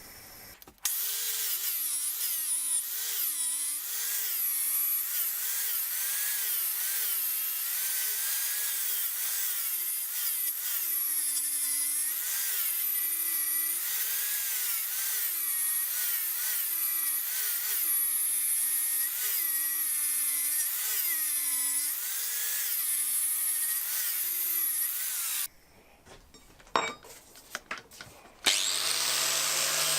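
High-speed electric power tool run against the work, its motor pitch dipping and recovering about once a second as the load changes. It stops a few seconds before the end, and near the end another tool starts with a lower, steadier hum.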